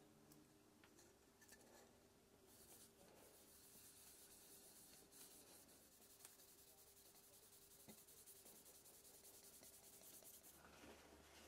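Faint hand-sanding of an ash bowl with a foam sanding pad: quick, light back-and-forth rubbing strokes that pick up about two seconds in and stop near the end.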